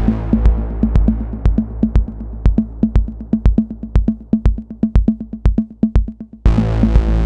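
Ethereal techno played on a Novation Circuit Tracks groovebox: a steady kick drum about two beats a second under sharp, clicky synth percussion. A dense synth chord pad dies away over the first second or so, leaving the bare beat, then comes back in full about six and a half seconds in.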